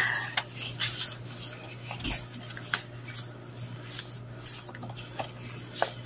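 Pages of a handmade junk journal being turned and handled by hand: soft paper rustling with scattered light clicks and taps, over a faint steady low hum.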